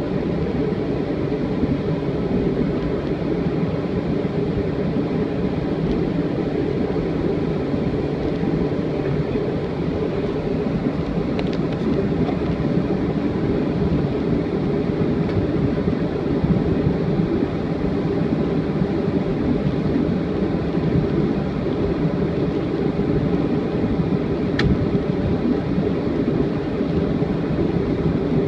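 Steady cabin noise inside a Boeing 737-400 rolling along the ground after landing: the even, unchanging sound of its CFM56 engines and airframe, with a couple of faint ticks.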